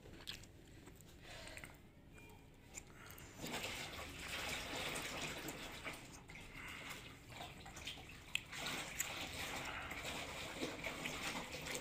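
Clothes being washed by hand in a plastic tub of soapy detergent water: the water sloshes and splashes as the clothes are worked, louder from about three seconds in.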